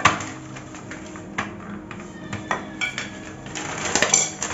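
Thin plastic sheet crinkling and crackling as it is peeled off rolled-out dough, with a sharp snap at the start and a few scattered crackles after.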